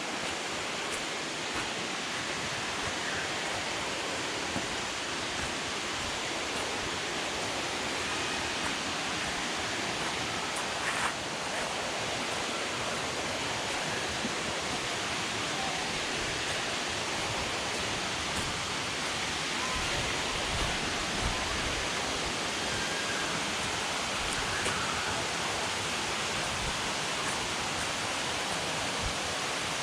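Waterfall's steady rush of water, with a few faint knocks.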